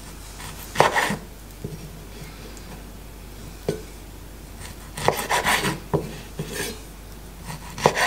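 Chef's knife slicing raw tuna on a wooden cutting board: short clusters of knife taps and scrapes against the board, about a second in, once near the middle, a busier run a little after halfway, and again near the end.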